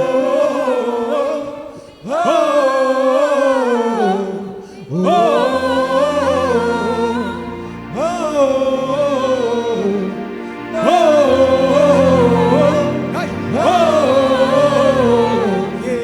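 Wordless gospel worship singing: a voice sings long, wavering 'oh' phrases over sustained backing chords. There are about five phrases, each opening with an upward swoop.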